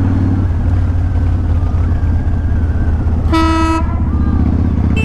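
Kawasaki Vulcan 1500 V-twin engine running steadily while riding, with a vehicle horn giving one short toot of about half a second a little after three seconds in.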